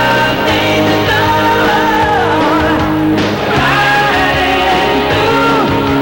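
Rock music with a singing voice and electric guitar, loud and steady.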